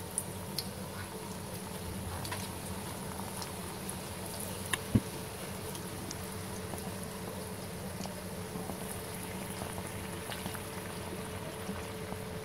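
Besan pakoras deep-frying in hot oil in a kadhai, as a fresh batch of batter goes in: a steady sizzle with scattered crackles. A single sharp knock about five seconds in.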